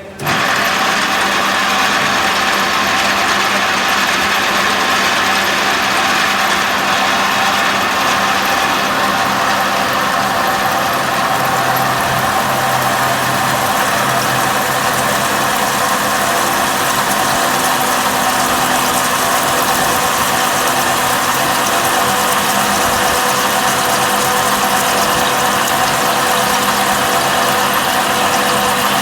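Six-spindle multi-drilling machine running, its motor and gear drive making a loud, steady mechanical noise with several held tones. It comes on abruptly right at the start and holds unchanged.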